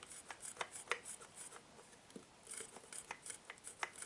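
Faint, irregular small metallic clicks and rubbing as the mixie jar's blade assembly is unscrewed by hand and worked loose.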